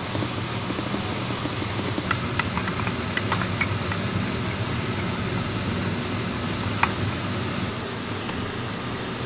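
Wooden stick stirring and clicking against a small metal ladle of frothing dalgona sugar, with a few light taps clustered in the first half. Under the taps runs a steady low rumble.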